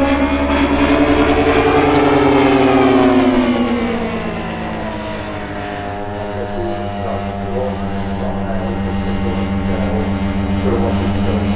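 Engine of a large-scale radio-controlled propeller airplane in flight. Its pitch rises to a peak about two to three seconds in, falls away and gets a little quieter, then holds steady.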